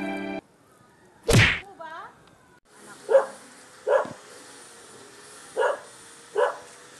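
A dog barking in short single barks, five spread over about four seconds, after a loud whoosh about a second in. Sad violin music cuts off at the very start.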